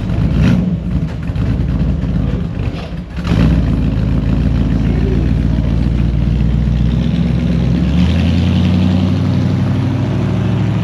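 A car engine running steadily close by, its note dipping briefly about three seconds in and then running stronger and deeper.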